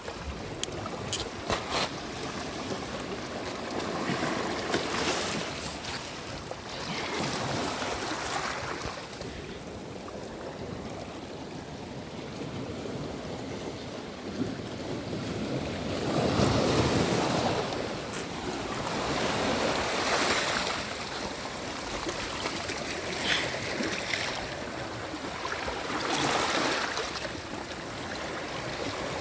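Sea waves washing onto a beach, the surf swelling and fading every few seconds, with the biggest wave a little past halfway.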